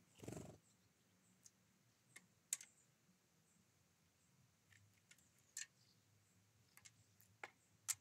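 Great tit at a feeding table: sparse sharp clicks and ticks of its beak and feet on the seed tray and dish, over near silence, with a short soft rustle at the very start.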